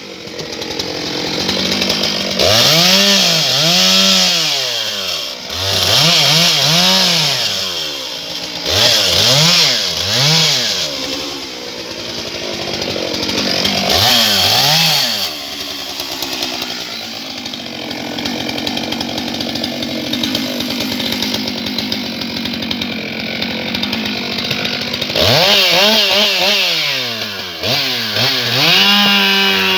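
Stihl MS 661 C-M two-stroke chainsaw, its engine revving up and falling back again and again, with a long steady stretch in the middle where it is held under load while cutting through small logs.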